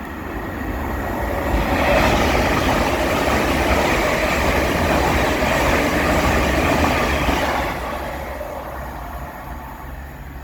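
A train passing through the station at speed: the rolling noise builds over about two seconds, stays loud for some six seconds, then dies away.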